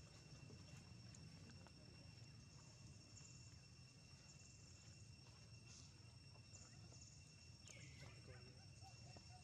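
Near silence: faint outdoor ambience with two steady high-pitched tones and a short falling animal call about eight seconds in.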